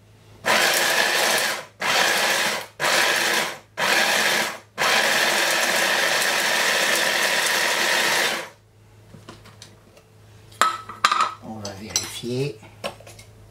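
Electric mini chopper grinding whole spices (coriander seed, cumin, pepper, cloves) finely: four short pulses about a second apart, then a continuous run of nearly four seconds that stops sharply. A few light plastic clicks and knocks follow as the motor top and lid come off the bowl.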